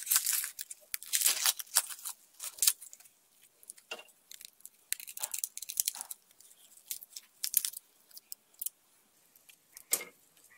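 Dry, papery garlic skins crackling and tearing as a garlic bulb is broken into cloves and peeled by gloved hands, in irregular crinkly bursts.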